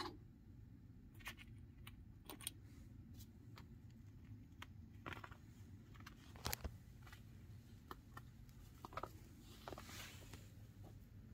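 Near silence: quiet room tone with scattered faint taps and light rustles, the clearest tap about two-thirds of the way through.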